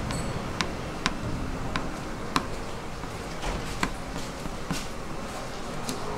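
Light, sharp clicks, about seven at irregular intervals, over a steady background noise: sugar-painting tools, a scraper sheet and a pen-like tool, touching and tapping the galvanized metal plate as the syrup is shaped.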